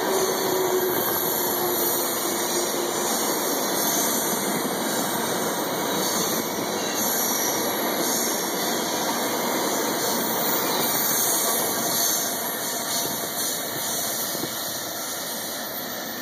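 Ethanol tank cars of a freight train rolling past: a steady rush and rumble of steel wheels on the rail, easing off slightly near the end as the train draws into the tunnel.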